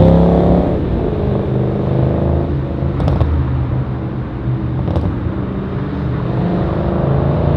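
Audi RS6 C7's twin-turbo V8 through a Friedrich Motorsport exhaust, pulling away in traffic: the engine note falls off in the first second, then holds a lower, steady drone that fades as the car moves off, rising again near the end. Two short sharp clicks are heard about three and five seconds in.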